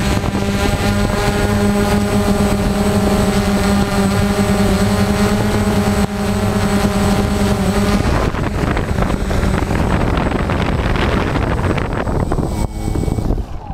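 Quadcopter drone's motors and propellers running with a steady hum, recorded from the drone itself. The steady tone drops away about eight seconds in while the rotor noise goes on as it comes down onto the asphalt. It stops abruptly near the end, once it is on the ground.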